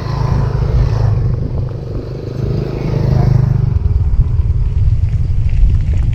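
Wind rumbling heavily on the microphone of a moving bicycle, while a motor vehicle passes, louder in the first few seconds and then fading.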